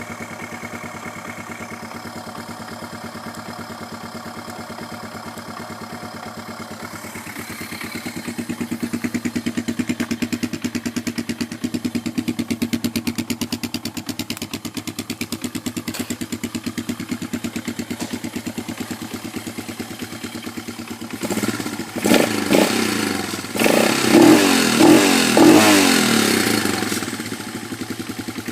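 Freshly rebuilt Honda TR200 Fat Cat single-cylinder four-stroke engine running with an even thumping pulse, picking up speed about seven seconds in. Near the end it is revved in a few short blips.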